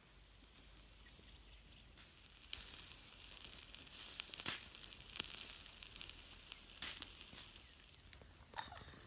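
Whole duck roasting on a bamboo spit over charcoal embers, sizzling, with irregular sharp crackles and pops starting about two seconds in.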